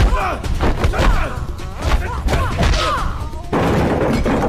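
Fight-scene soundtrack: a quick run of punch and hit impacts and thuds over background music.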